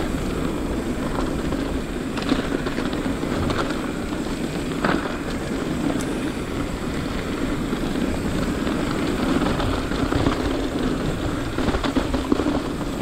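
Mountain bike descending a dry dirt singletrack: a steady rush of wind and tyre noise, broken by scattered clicks and rattles from the bike over bumps.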